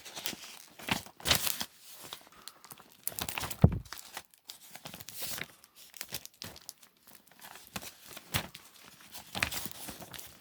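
Crinkling and rustling of plastic or paper being handled, in irregular short bursts, with a single knock about three and a half seconds in.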